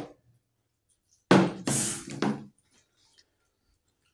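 A partly filled plastic water bottle is flipped and lands on a wooden table. It hits with a sudden clatter about a second and a half in, then knocks a few more times over the next second as it settles.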